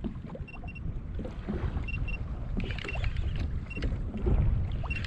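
Wind and water rumbling on the microphone aboard a fishing kayak at sea while a rod and reel are worked against a hooked fish that keeps taking line. Short high beeps, mostly in pairs, sound several times.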